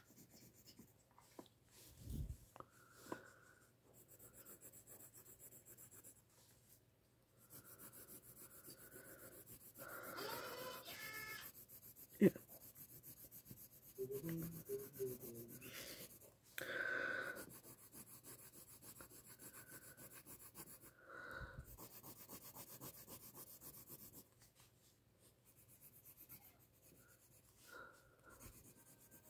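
Faint scratching of a graphite pencil on paper as an area is shaded with quick back-and-forth strokes, with one sharp click about twelve seconds in.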